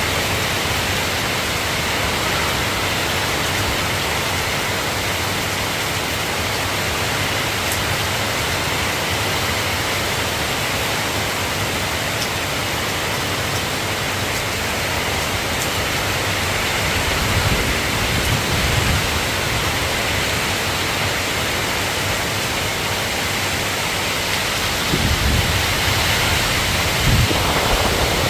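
Steady rain falling, an even hiss. Low rumbles come in about two-thirds of the way through and again near the end.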